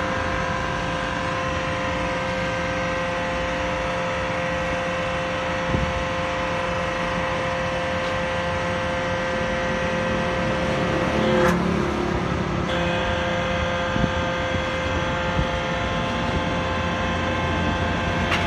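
Homemade truck tyre press's hydraulic pump motor running steadily with a whine. About eleven seconds in, the whine drops out for about a second under a brief rushing noise, then comes back, with a few light knocks later on.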